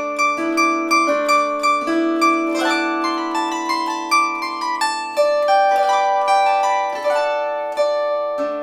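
Gusli (Russian psaltery) played solo: a steady run of plucked notes, several a second, ringing on over sustained lower strings in a wordless bylina melody.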